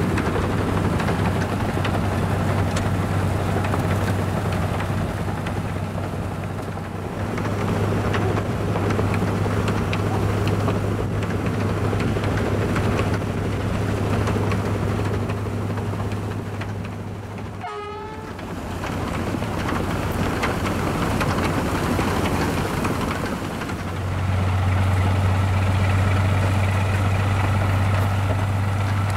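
Snowplow locomotive driving through deep snow: a steady low engine drone under the rushing noise of snow being thrown off the plow. The sound breaks off briefly about two-thirds of the way through, and the drone is stronger near the end.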